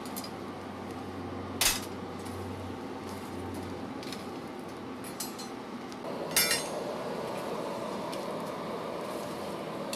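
Blacksmith's shop sound: steady noise from the coal forge, with a sharp metal click about a second and a half in and a ringing metallic clink about six seconds in.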